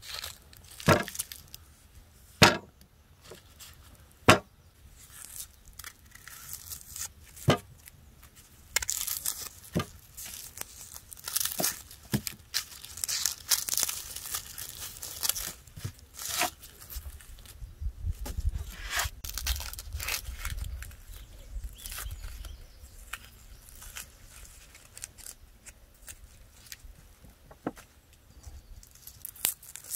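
Several sharp knocks of onions being set down on a wooden board, then dry onion skins crackling and tearing as onions are peeled by hand.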